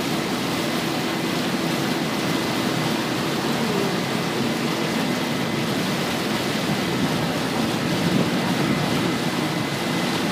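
Steady rush of river water along the hull of a tour boat under way, mixed with the boat's engine drone.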